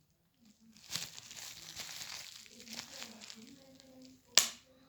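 Crinkling, crackling handling noise, then a single sharp, loud pop near the end.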